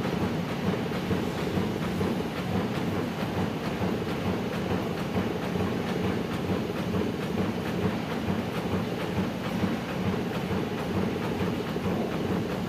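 Amada Vipros 358 King turret punch press running, a rapid, steady clatter of repeated punch strokes.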